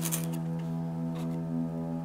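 Ambient background music of steady held tones. Over it, light handling of cardboard boxes on a desk makes a brief rustle at the start and a soft tap about a second in.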